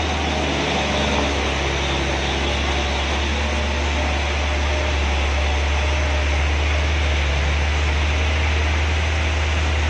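Loaded truck's diesel engine pulling hard up a steep hairpin, a steady low drone, under an even hiss of rain.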